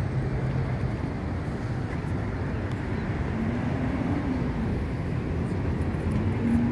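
Street traffic: a steady low rumble of passing cars and engines, with one engine hum rising and falling about three to four seconds in and another starting near the end.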